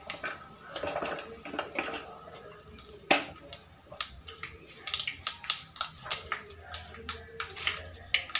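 Cumin seeds crackling and spitting in hot oil in a kadai: irregular sharp pops over a faint sizzle, coming thicker and louder in the second half.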